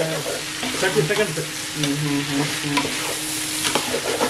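Metal spatula stirring and turning diced chicken, capsicum and onion in a hot pan, food sizzling with repeated scraping clicks of the spatula against the pan.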